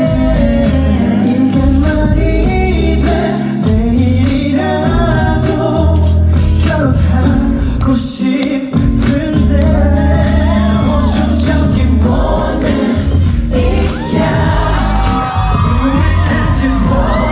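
Live concert performance of a pop song: singing over a full band with a strong bass beat, loud and continuous.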